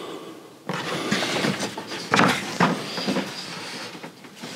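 A 12 V campervan fridge being pushed and worked into a too-tight recess, scraping and knocking against the cabinet walls in a run of rough bursts that start about a second in. It rubs because it is too wide for the opening.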